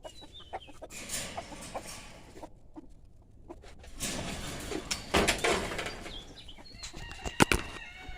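Chickens clucking, with stretches of rustling and a pair of sharp knocks near the end.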